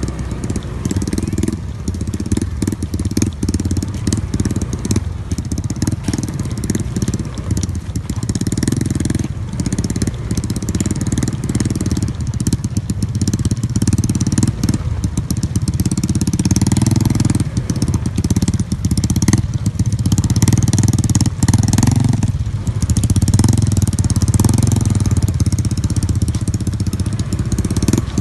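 An engine running steadily, with constant clattering and rattling over it, growing louder about halfway through.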